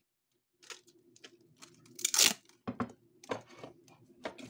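Clear packing tape being pulled off its roll in several short tearing rips, the loudest about two seconds in.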